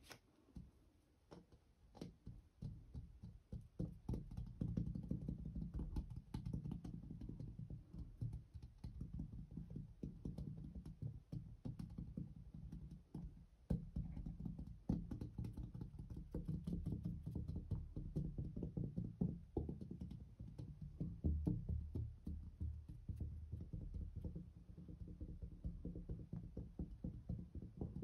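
Fingertips tapping rapidly on a mirror's glass in dull, low taps. The taps are sparse at first and fast and continuous from about four seconds in.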